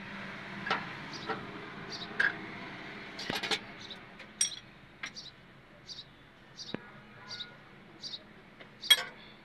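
Sharp metal clinks and taps of a spanner on the rocker arms and adjusters of a diesel engine's open valve gear during a tappet (valve clearance) adjustment, the loudest a clink near the end. Behind it a small bird chirps evenly, about twice a second.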